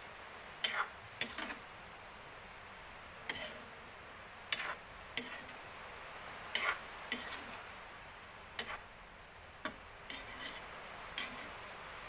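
A spatula knocking and scraping against a metal wok while a thick pork stew is stirred: about a dozen sharp, irregular clacks, roughly one a second.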